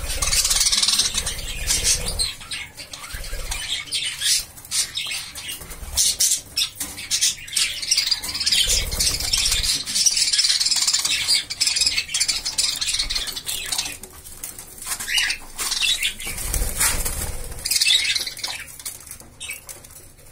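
A cage of white budgerigars chattering with rapid high chirps, with their wings fluttering now and then.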